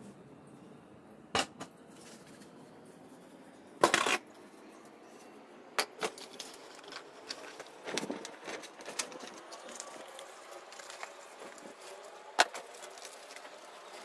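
Plastic floor-fan grille and housing pieces handled and wiped with a damp cloth: cloth rubbing on plastic, with scattered knocks and clicks of the plastic parts, the loudest a short clatter about four seconds in and a sharp click near the end.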